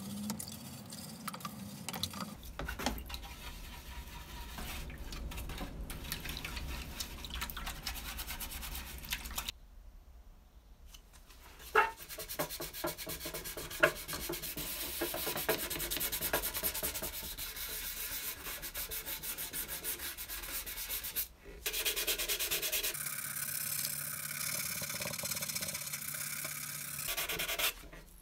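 Brush scrubbing the plastic drum of a toy cement mixer in a tub of water. After a short lull about ten seconds in, a blade scrapes along the plastic in a steady run of strokes.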